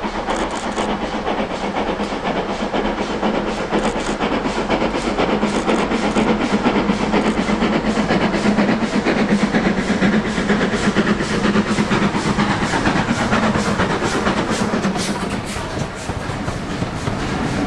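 Steam train running, with a quick, regular beat throughout; it grows a little louder through the middle and eases near the end.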